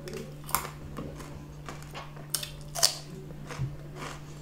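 Close-miked eating of french fries: chewing with a few sharp wet mouth clicks and smacks, the loudest near three seconds in. A steady low hum runs underneath.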